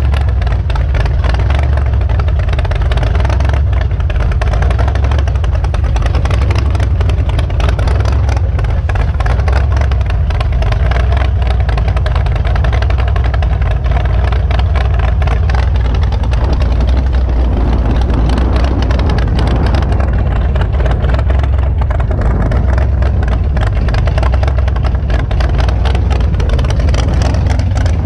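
Supercharged big-block Mopar V8 of an 800 hp drag car running loud and steady while the car rolls slowly, with no big revs.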